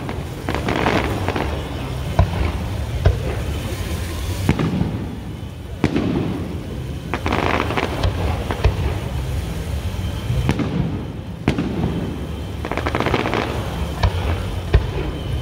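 Aerial fireworks shells from a Grucci display bursting overhead: a string of sharp booms at uneven intervals of a second or two over a continuous low rumble.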